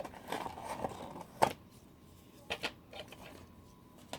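Small toy packaging being handled: rustling with a few sharp clicks, the loudest about one and a half seconds in.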